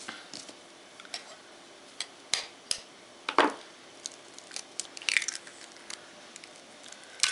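An egg being cracked and opened by hand: a few sharp taps and clicks, the loudest about three and a half seconds in, then a short cluster of crackles as the shell is pulled apart over the bowl.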